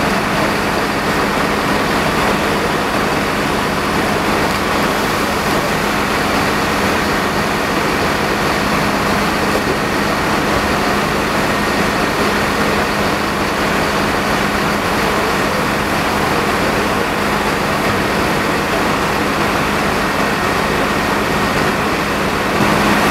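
Fire truck engine running steadily at constant speed: a steady hum under an even rush of noise.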